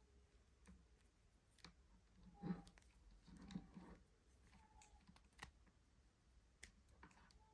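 Near silence with faint, scattered light clicks and two soft knocks about two and a half and three and a half seconds in, like small handling noises.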